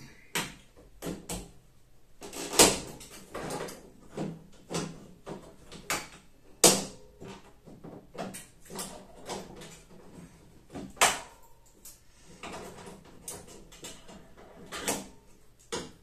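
Irregular knocks and bangs on a tumble dryer's sheet-metal casing, worked with a block of wood to straighten out the caved-in top. The loudest strikes fall about two and a half, six and a half and eleven seconds in, the one at eleven seconds with a short ring.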